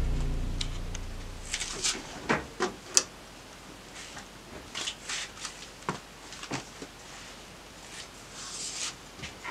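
Clothes being handled in an open laundry machine: scattered soft knocks and rustles, about a dozen in all. A low drone fades out over the first second or so.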